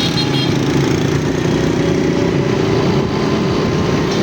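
A small vehicle engine running steadily, heard while travelling through traffic.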